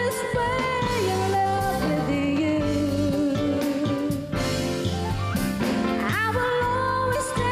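Female singer performing a love song with instrumental accompaniment, holding long notes that step up and down in pitch.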